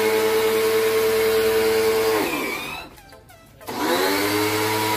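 Black + Decker electric pressure washer running with a steady motor whine and spray hiss while spraying soapy water through its foam bottle. About two seconds in the motor winds down to a stop as the trigger is released, then about a second later it starts up again and runs steadily.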